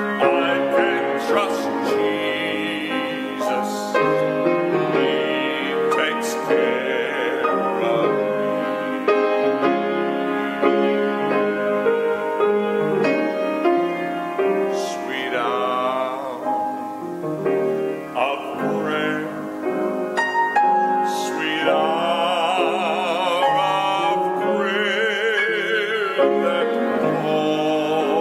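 A man singing a hymn with a strong, operatic vibrato to his own grand piano accompaniment.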